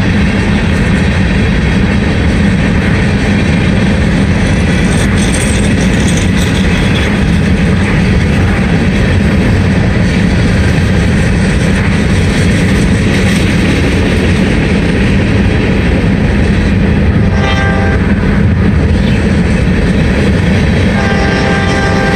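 Steady rumble of a car driving at speed alongside a freight train of empty hopper cars, the road and rail noise mixed together. Near the end a locomotive horn sounds, faintly at first and then more strongly.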